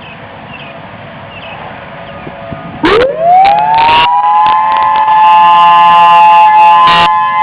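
A distant Federal Signal Thunderbolt siren sounds faintly in the background. About three seconds in, a Federal Signal EOWS 612 electronic warning siren starts up loud, sweeping up in pitch over about two seconds and settling into a steady two-tone sound. A few sharp clicks or knocks come through it.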